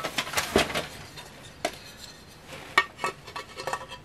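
Irregular light clinks and taps of the pieces of a broken, cracked framed horse plaque knocking together as it is handled, with a quick cluster of them in the second half.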